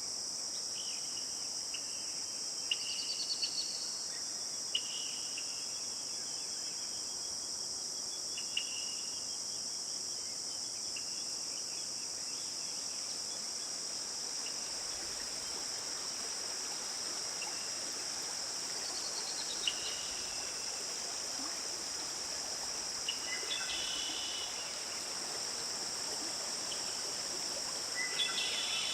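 Steady high-pitched chorus of crickets and other insects, with short bird chirps breaking in now and then, including two quick falling trills and a burst of chirping near the end.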